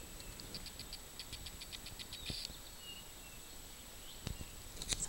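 Faint, quick series of short high chirps, about seven a second for two seconds, ending in a slightly louder chirp, from a small wild creature in the bush. A couple of soft clicks follow.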